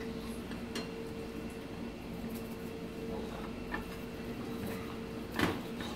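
Steady low hum of kitchen machinery, with a few faint clicks from hands handling meat and plates, and one louder knock about five seconds in.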